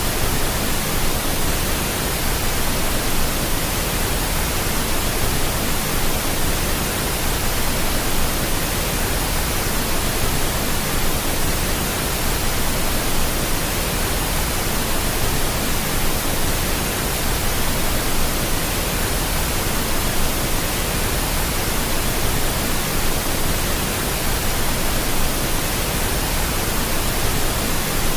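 Steady pink noise: an even, unchanging hiss spread across all pitches, weighted toward the low end.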